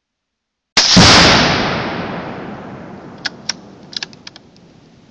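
A .17 HMR rifle shot, followed almost at once by the bigger boom of an exploding target, the boom rolling and echoing away slowly over several seconds. A few light, sharp clicks come about three to four seconds in.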